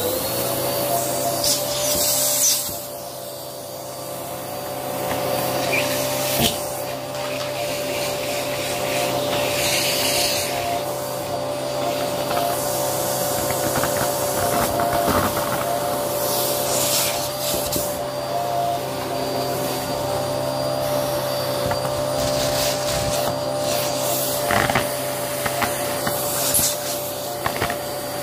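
Vacuum cleaner with a brushroll running steadily with a whine over a low hum, its motor just reaching full speed at the start. Scattered crackles and rattles on top, like dried potpourri petals and debris being picked up by the brushroll.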